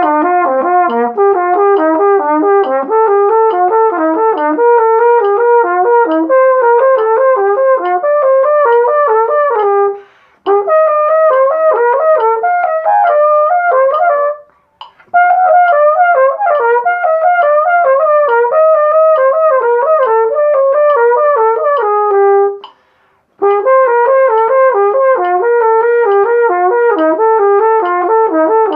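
Flugelhorn playing a practice exercise in quick runs of short notes, in phrases broken by brief pauses for breath about 10, 14 and 23 seconds in.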